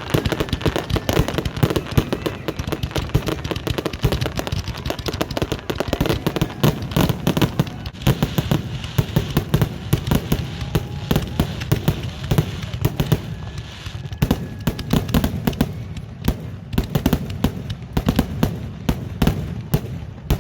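Fireworks display: a dense, continuous barrage of bangs and crackles from aerial shells, many per second, over a low rumble.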